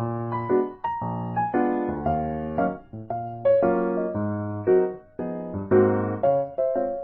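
Background music played on a keyboard: piano-like notes and chords, each struck sharply and fading away, at an even moderate pace.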